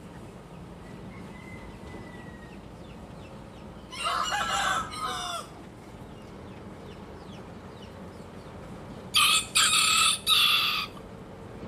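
Rooster crowing: a loud crow in three parts near the end, after a shorter, lower call about four seconds in.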